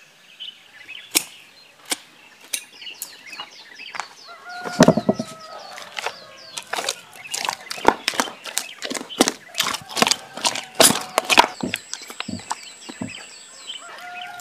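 Wet clay being mixed and kneaded by hand: a run of quick wet slaps and squelches, densest in the middle. Chickens cluck about five seconds in and again near the end, and small birds chirp throughout.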